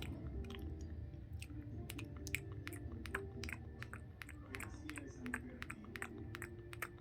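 Close-miked ASMR chewing with wet mouth clicks and smacks, about three sharp clicks a second.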